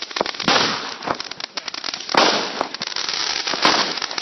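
Consumer fireworks going off: dense rapid crackling with a few louder bangs, about half a second, two seconds and three and a half seconds in.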